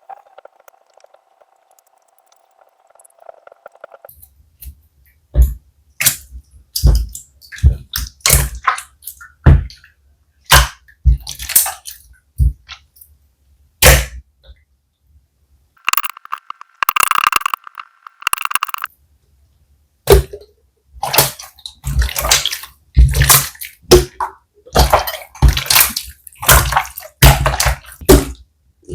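Slime being squeezed and pressed by hand: irregular wet squelches and pops of trapped air, starting about four seconds in and coming thick and fast near the end, with a brief squeaky stretch about halfway.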